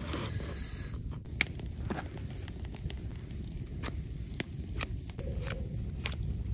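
Fixed-blade knife whittling a thin wooden stick: a series of short, sharp scrapes and clicks as the blade bites the wood, about one every half second to second, over a low steady rumble.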